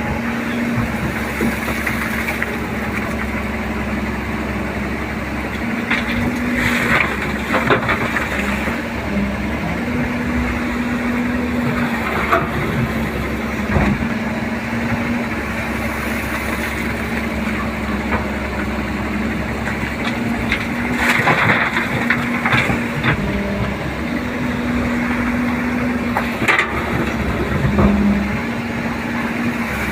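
JCB 205 excavator's diesel engine running under working load, its steady drone rising and falling as the hydraulics are worked. Scattered knocks and crunches come through as the bucket digs, with clusters of them about a third of the way in and again past two-thirds.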